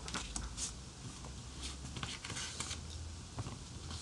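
Quiet room tone: a steady low hum with faint, scattered soft clicks and rustles.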